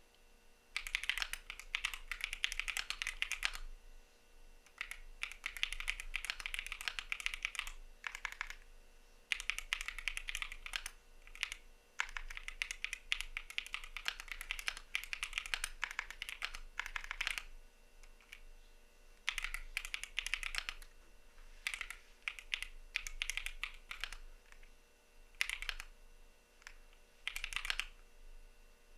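Typing on a CIDOO V75 mechanical keyboard with Matte switches: quick runs of key clicks lasting a few seconds each, broken by short pauses.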